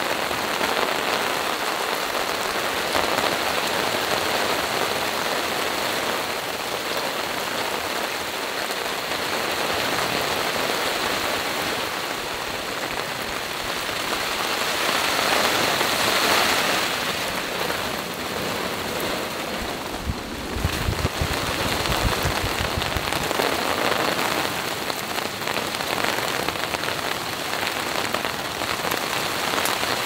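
Steady rain falling on a tarp overhead and dripping from its edge. The rain swells for a few seconds about fifteen seconds in, and a brief low rumble comes through a few seconds later.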